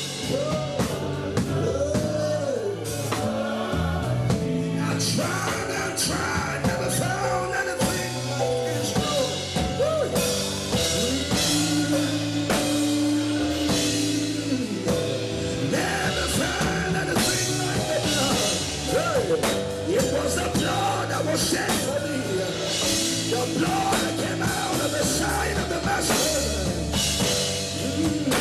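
Worship music: singing over a band with a drum kit keeping a steady beat.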